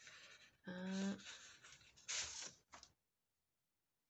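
Paper pages and card dividers rustling and shuffling as they are handled, with a short steady hum of a woman's voice about a second in; the sound cuts out to silence about three seconds in.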